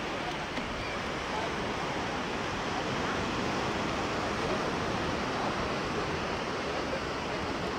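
Steady wash of sea surf on a beach, with faint distant chatter of people.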